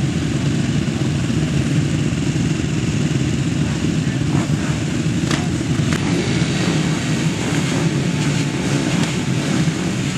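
Pack of racing quads (ATVs) running together on the start line, a steady engine din, held ready for the start-gate drop.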